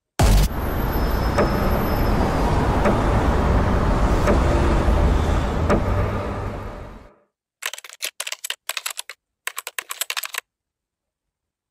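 A sudden loud rumbling noise, strongest in the low end, starts at once and holds for about seven seconds before fading out. After a short silence comes about three seconds of rapid keyboard typing clicks in short runs: a typing sound effect as text is typed out on screen.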